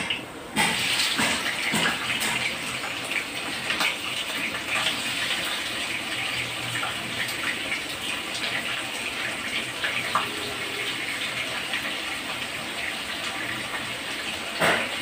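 Prawns dropped into hot mustard oil beside frying potatoes, sizzling and crackling steadily in the pan. The sizzle starts about half a second in.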